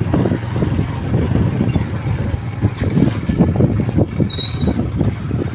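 Strong storm wind buffeting the microphone: a loud, gusting low rumble. A brief high-pitched chirp sounds about four seconds in.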